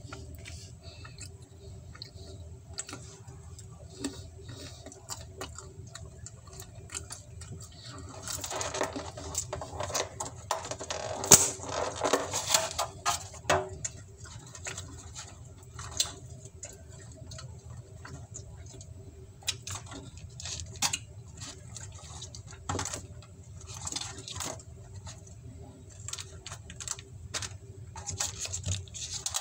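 Close-miked eating sounds: chewing and small mouth clicks with handling of the pizza, busiest about a third of the way in, where one sharp click stands out. A steady low hum runs underneath.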